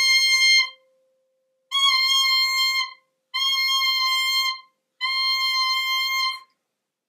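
Soprano saxophone mouthpiece blown on its own, sounding a high C in a series of held, steady notes: the end of one, then three more, each about a second and a half long. This C is the target pitch for a soprano mouthpiece when the embouchure is set up correctly. A fainter steady tone an octave lower fades out partway through.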